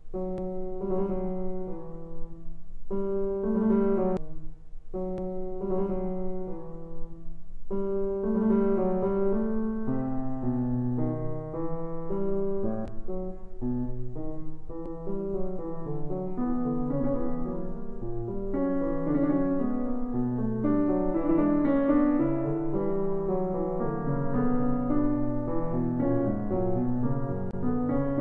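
Piano music: a few slow held chords with short pauses between them, then a flowing melody over moving bass notes from about eight seconds in.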